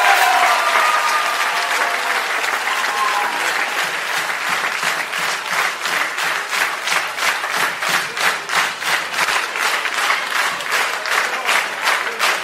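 Concert crowd applauding. About four seconds in the scattered applause settles into rhythmic clapping in unison, roughly two to three claps a second.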